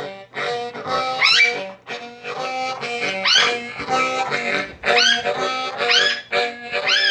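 Low-tuned 365 bass harmonica playing a blues phrase of held notes, with a guitar under it. A high call that rises and falls repeats about once a second over the notes.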